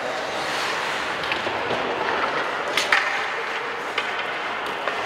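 Ice hockey game sounds in a rink: a steady hiss of skates and arena noise, with a few sharp stick-and-puck clacks, the loudest about three seconds in.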